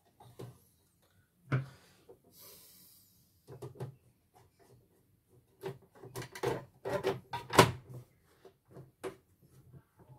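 Clicks and knocks of the plastic casing of a CNY portable embroidery machine as its end cover is fitted and pressed into place by hand. The knocks come thicker and sharper in the second half.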